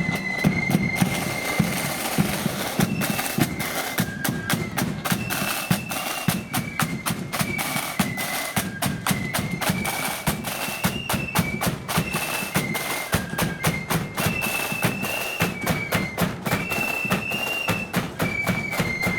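Marching flute band playing a march: flutes carry a single high melody in unison over rapid snare-drum strokes and a heavy bass drum.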